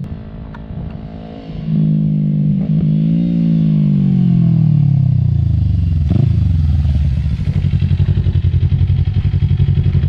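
Kawasaki Ninja 400 parallel-twin through a LeoVince Factory S full stainless-steel exhaust, coming closer. The engine note gets louder about two seconds in, rises briefly, then falls steadily as the bike slows. From about seven seconds in it settles into an idle with an even, pulsing beat.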